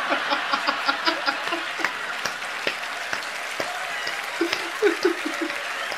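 A theatre audience applauding and laughing at a stand-up comedy punchline. Over it a man laughs in short bursts, near the start and again a little before the end.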